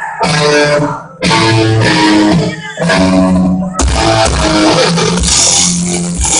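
Live rock band playing loud, with electric guitars, bass and drums in stop-start bursts: short breaks about a second in and near three seconds, then continuous playing. The recording is overloaded and harsh.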